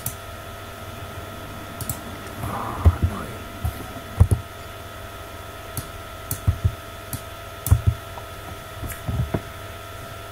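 Computer keyboard keystrokes and clicks as code is edited: about a dozen irregular short taps, over a steady background hum.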